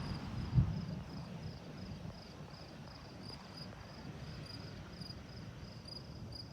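Low rumble of distant thunder fading over the first couple of seconds, with a single thump about half a second in, over crickets chirping steadily at about three chirps a second.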